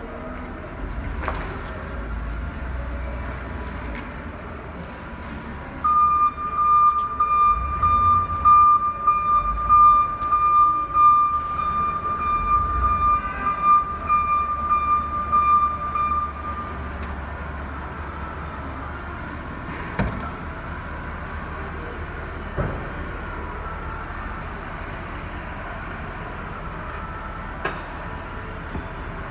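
A 2002 Chevrolet K3500 service truck's engine runs with a steady low rumble. From a few seconds in, a steady high-pitched electronic tone sounds for about ten seconds, then stops.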